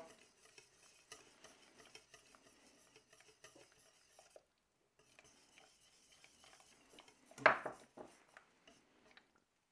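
Wire whisk stirring a thick cream sauce in a stainless steel pot: faint soft scraping with light metal ticks against the pot. It pauses briefly about four seconds in, and there is one louder knock near the end.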